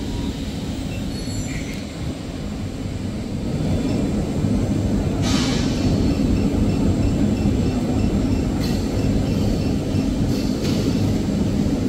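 Toilet tissue paper machine running steadily, a continuous low mechanical rumble that grows a little louder about three seconds in. There is a short hiss about five seconds in.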